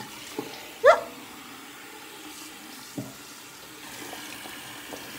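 Bathroom sink faucet running, the stream splashing over a rubber shark hand puppet and into the basin. A short rising squeak sounds about a second in.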